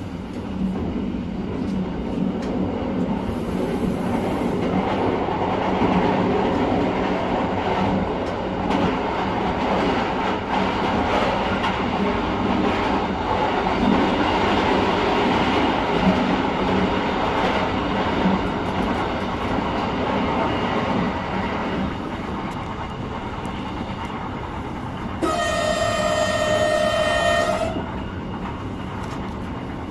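Ride noise inside a moving diesel regional train: a steady rumble of wheels on track and running gear. Near the end, a train horn sounds once for about two and a half seconds on a single steady note.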